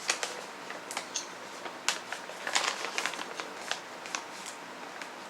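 Pork rinds being crunched while chewing: irregular sharp crackling crunches, several bunched around the middle.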